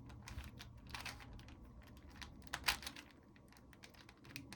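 Layers of a plastic 4x4 Rubik's Cube being twisted by hand: a few separate clicks and clacks, the loudest a little over two and a half seconds in.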